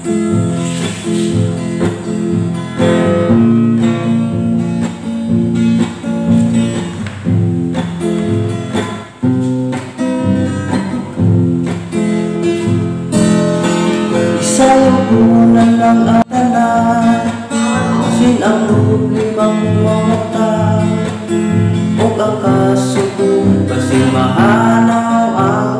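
Acoustic guitar strummed in a steady rhythm, with a man's singing voice joining about halfway through.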